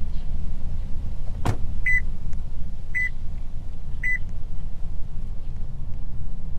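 RC car sound unit playing a Subaru Impreza's engine idling as a steady low rumble. There is a sharp click about one and a half seconds in, then three short high beeps about a second apart.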